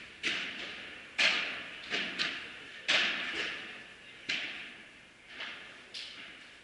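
Padel rally: a padel ball is struck by rackets and bounces, making about nine sharp hits at an irregular pace. Each hit echoes on in the large indoor hall, and the loudest come about a second and about three seconds in.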